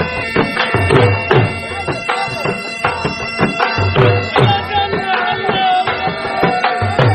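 Background music: a reedy wind melody over held drone tones, with repeated drum beats.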